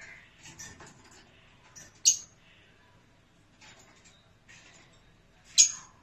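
Sun conures giving two short, sharp, loud squawks about three and a half seconds apart, with fainter soft chatter and small noises between them.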